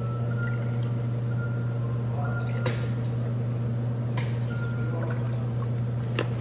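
Milk pouring from a plastic jug into metal milk pitchers, one after another, with a few light knocks. A steady low hum runs underneath.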